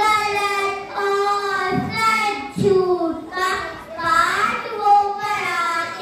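A young girl singing an Urdu poem (nazm) in a melodic, chanted recitation, holding long notes between short breaks.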